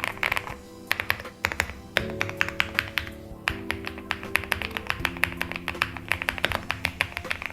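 Keys of a CYBERBOARD Novel 3 Euphoria mechanical keyboard being typed on quickly, a rapid run of sharp clicks from about a second in, over background music with held chords.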